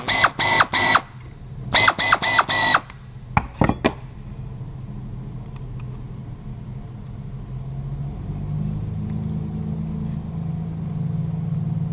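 Drill spinning a microstop countersink cutter into an aluminium sheet in short trigger bursts, about four quick whining bursts at the start and four more around two seconds in, deepening a countersink that was slightly too shallow. Two sharp clicks follow, then a low steady hum takes over and grows louder about eight seconds in.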